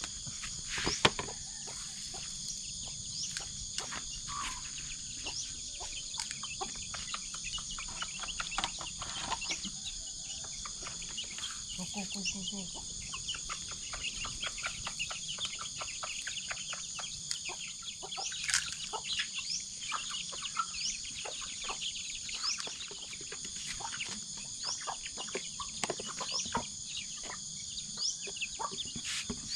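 Chickens clucking over a steady high trilling of crickets and other insects, with short bird chirps and scattered light knocks; one sharp knock about a second in.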